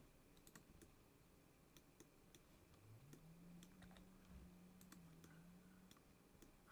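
Faint, scattered clicks of a computer mouse and keyboard keys.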